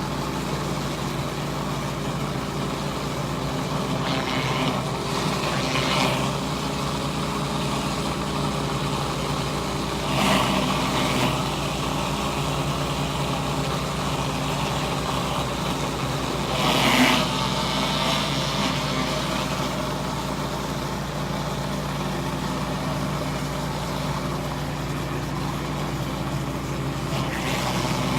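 Pressure washer engine running steadily under load while the surface cleaner sprays concrete, with several short louder hissing swells, the loudest about two-thirds of the way through.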